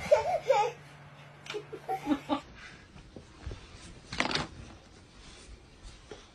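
Mostly quiet, with a few brief soft sounds from a small child's voice near the start and again about two seconds in, and a short breathy burst about four seconds in.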